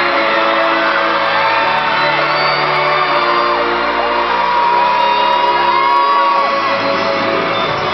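Arena concert intro music with sustained chords playing loudly, while a crowd of fans screams over it in a run of long, high screams, one after another.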